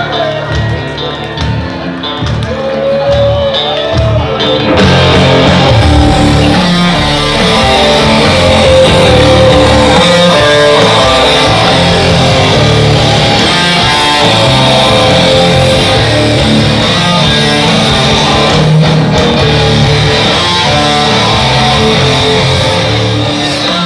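Music with guitar, rock in style, playing loudly, becoming fuller and louder about five seconds in.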